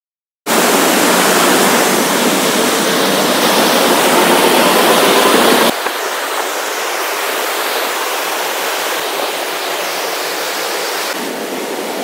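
Rushing white water of the Cachoeira Jaguari's stepped cascades and rocky rapids, a loud, steady wash of noise. It starts abruptly about half a second in, and about six seconds in it becomes slightly quieter and thinner in the low end.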